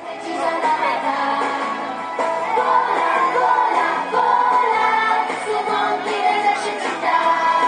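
A song with singing voices over a musical accompaniment, running steadily.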